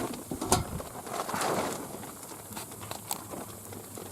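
Wood fire crackling in a small wood-burning camp stove, with scattered light clicks and a sharp knock about half a second in.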